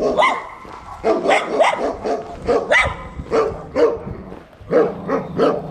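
Small dog barking repeatedly at a passer-by, short sharp barks often coming in quick pairs with brief pauses between.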